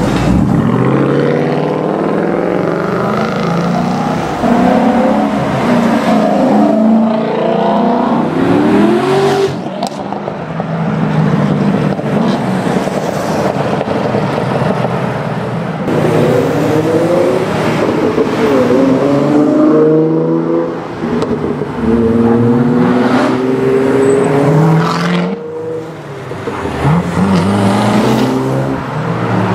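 V8 engines of Chevrolet Corvettes and a Ford Mustang GT accelerating hard, their loud exhausts climbing in pitch again and again as they pull through the gears. There are two long runs of acceleration with short lulls between them.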